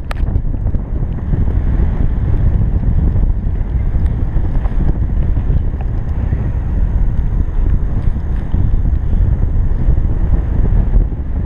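Airflow in paraglider flight buffeting the camera's microphone: a steady low rumble of wind noise.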